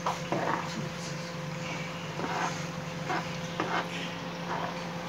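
Light clicks and scrapes of a utensil in a frying pan of cooking egg sauce, scattered about eight times, over a steady low hum.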